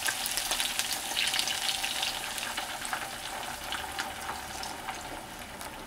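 Chicken wings sizzling and crackling in hot oil in a skillet as a Coca-Cola, soy sauce and vinegar mixture is poured over them; the sizzle slowly gets quieter.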